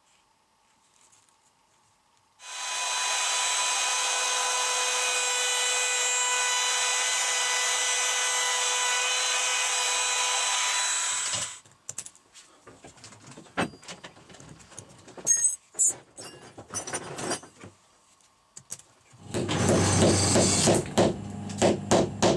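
A power tool runs steadily at one pitch for about nine seconds, then stops. Scissors then snip through thin metal sheet in scattered clicks. Near the end, a hammer taps quickly and repeatedly, driving a metal piece into a hole in a small wooden block.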